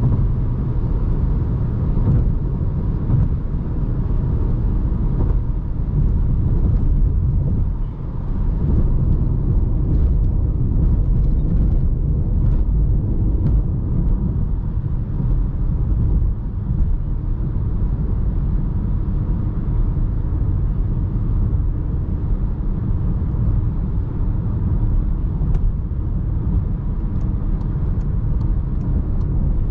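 2020 Volkswagen Jetta's 1.4 TSI inline-four and road noise while driving: a steady low rumble.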